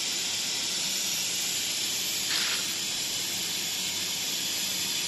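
CNC plasma cutting torch running: a steady high hiss, with a short louder burst of hiss about two and a half seconds in.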